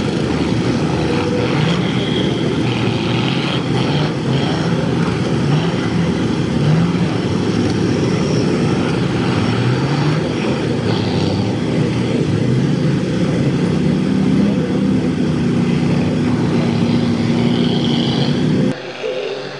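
Cummins diesel engines of Dodge mega trucks running hard in the mud, their pitch climbing again and again as they rev. The sound drops off suddenly near the end.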